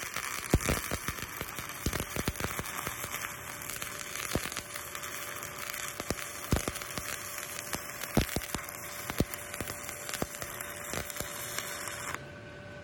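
Shielded metal arc (stick) welding arc crackling and hissing with irregular sharp pops, as a cellulose pipeline electrode runs the hot pass on a steel pipe branch joint. The arc breaks off near the end.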